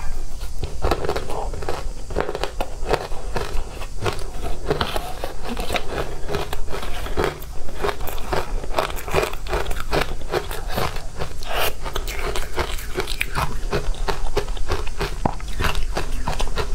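Close-miked crunching and chewing of powdery ice coated in matcha powder: dense, irregular crisp crunches, several a second, with a metal spoon scraping through the ice in the plastic tub.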